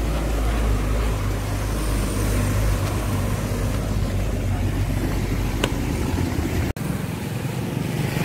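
Street traffic: a steady low rumble of motorcycles and other road vehicles running past. The sound drops out abruptly for an instant about two-thirds of the way through, and the low rumble is weaker afterwards.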